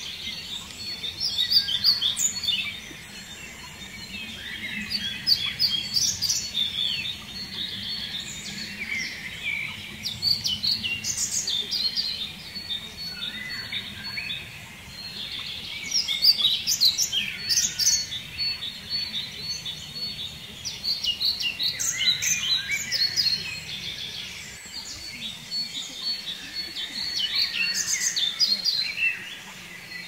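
Songbirds singing: phrases of high chirps and trills lasting a second or two, repeating every four to six seconds, over a faint low background rumble.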